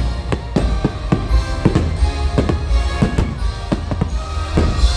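Christmas fireworks-show soundtrack music with a string of sharp bangs through it, roughly two to three a second at uneven spacing, from fireworks bursting overhead.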